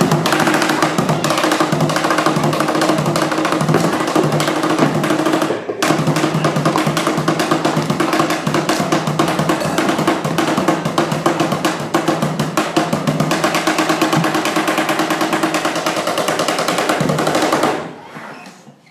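Fast, dense percussion played on upturned plastic buckets and other found objects with hands and sticks. It breaks off briefly about six seconds in and stops shortly before the end.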